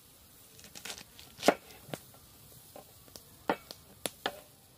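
Cleaver chopping bok choy on a wooden table: about eight sharp, irregularly spaced chops, the loudest about one and a half seconds in.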